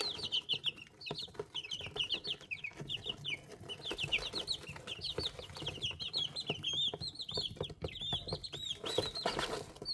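Young chicks peeping continuously: a dense run of short, high chirps, several a second. Faint light taps of pecking are mixed in.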